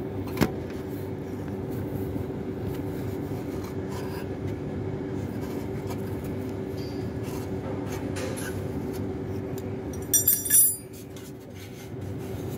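Small 12-volt electric fuel pump, run off a battery as a homemade gear-oil filler, humming steadily with a steady whine as it pumps oil into the transmission. Near the end there is a quick run of metallic clicks, and the hum drops for about a second before it picks up again.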